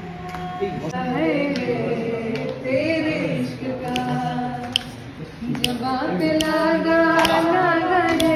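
A group of men and women singing together unaccompanied, with held, wavering notes, and a few sharp clicks scattered through.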